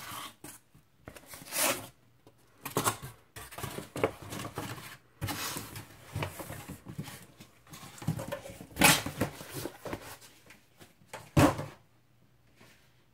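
Cardboard mailer box being handled: its flaps and cardboard insert rustling and scraping in irregular bursts as a vinyl LP jacket is slid out of it. The two loudest bumps come about two-thirds of the way in and just before the end, the last as the record is set down on a wooden desk.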